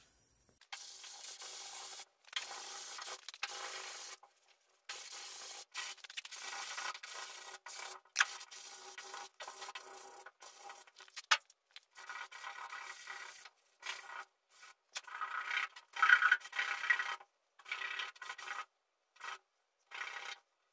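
Hand sanding of cured auto body filler on a truck's steel bedside with 180-grit sandpaper: scratchy back-and-forth strokes in runs of a second or two, with short pauses between them.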